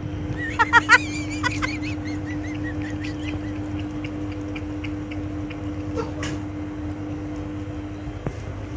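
Tabby cat lapping water from a bowl, faint soft laps about four a second, over a steady hum. About a second in, a brief run of high, wavering animal calls.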